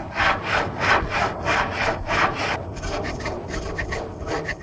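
A hand frame saw (tension saw) rips lengthwise through a fresh round pole, splitting it into the two ladder rails, with even back-and-forth strokes about three a second. About two and a half seconds in, the strokes turn quicker and lighter, then fade out at the end.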